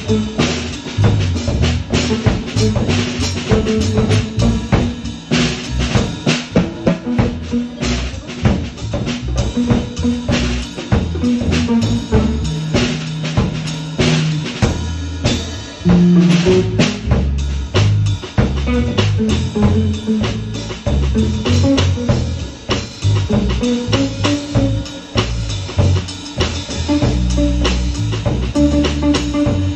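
Band music: a drum kit with bass drum and snare playing a steady beat under bass and other pitched instruments.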